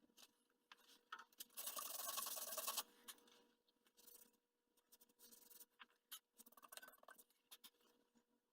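Faint handling noise: a scraping or rubbing sound lasting about a second, followed by a few light clicks and short rustles.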